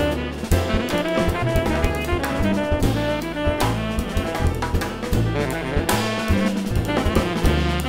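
Jazz music: saxophone playing over a drum kit with a steady beat.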